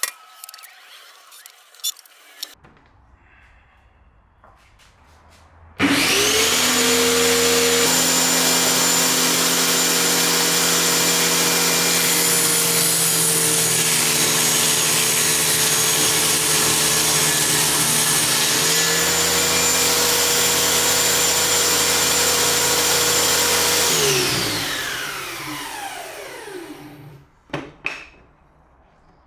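Ryobi circular saw, mounted under a homemade table-saw top, switched on and running at full speed. It cuts a plywood board, its motor pitch dropping slightly under load. It is then switched off and spins down with a falling whine over about three seconds.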